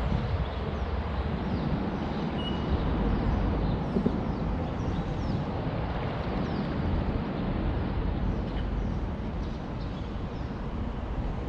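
Steady rumble of traffic on the expressway bridge overhead, with faint high bird chirps here and there.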